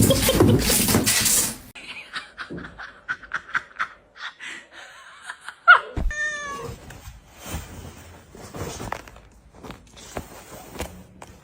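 Laughter at first. About six seconds in, a house cat gives a short call that glides in pitch and breaks into quick repeated notes. Scattered light taps and clicks run through the rest.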